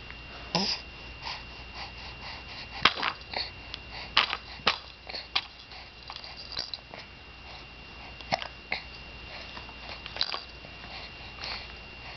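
A baby with the hiccups: a dozen or so short, sharp hiccups and small mouth sounds, irregularly spaced.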